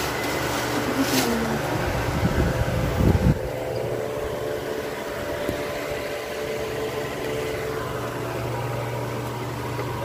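Steady mechanical hum with a constant low drone, with rustling and bumping noises over the first three seconds or so.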